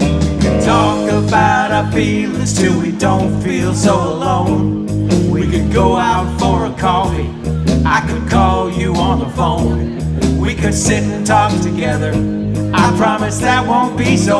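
Live band music in a blues-rock style: electric guitars playing over a steady low bass line, with a wavering lead line.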